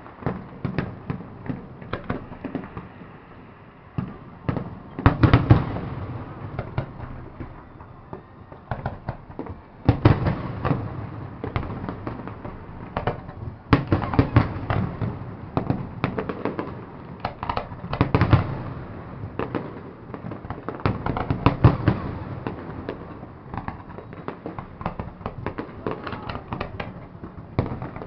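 Fireworks display going off: a steady stream of booming bursts and crackling, with heavier volleys every few seconds.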